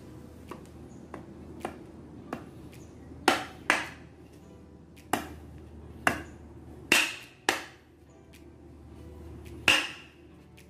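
Butcher knife chopping into a piece of crate wood to split off a section, a series of sharp irregular strikes. Light taps come first, then about seven heavier chops from about three seconds in.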